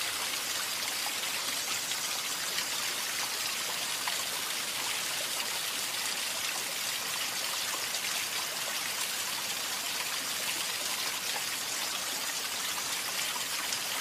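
Steady running-water sound, an even bright hiss like a flowing stream, starting suddenly and holding without change.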